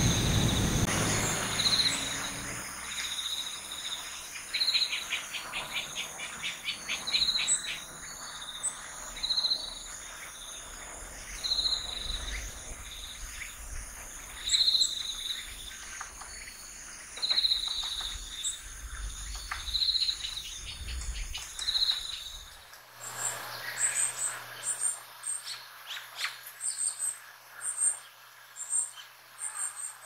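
Varied tit hammering a seed with its bill: a quick run of sharp knocks about five seconds in, then scattered taps, over short high notes repeating every two seconds or so. Near the end this gives way to rhythmic high-pitched insect chirping.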